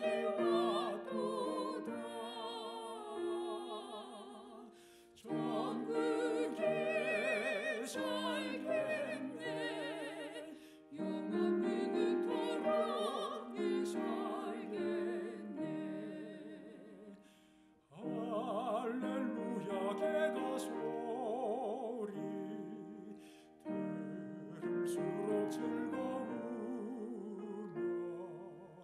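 A man and a woman singing a hymn in Korean as a duet, with wide vibrato, over piano accompaniment. The singing comes in phrases that pause briefly about every five to seven seconds.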